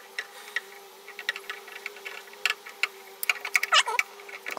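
Small irregular clicks and ticks of vise grips pressing screen spline into a window screen frame, with a short falling squeak near the end.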